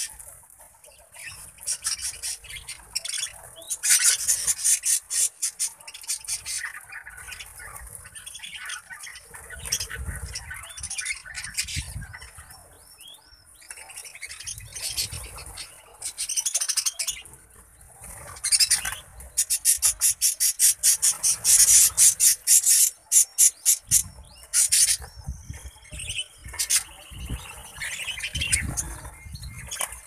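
A flock of budgerigars chattering and chirping, with spells of fast ticking chatter and short whistles, and wings fluttering now and then.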